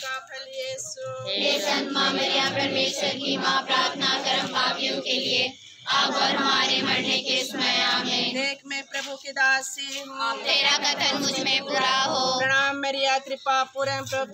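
A group of worshippers singing a devotional hymn together, with a brief break about five and a half seconds in.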